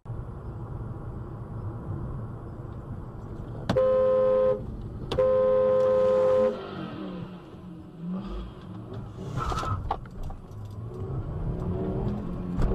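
Car driving with a steady low road and engine rumble, and a car horn sounding twice: a short blast, then a longer one a moment later. A brief, sharper noise follows a few seconds after the horn.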